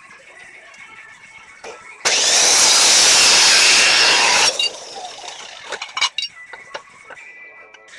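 Power cutting saw (a grinder saw) cutting through flat steel stock. The loud cut lasts about two and a half seconds, starting abruptly about two seconds in and cutting off sharply. Faint clicks and knocks come before and after it.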